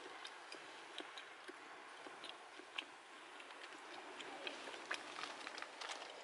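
Small wood fire crackling in a UNIFLAME Nature Stove: irregular sharp pops and ticks over a soft steady hiss.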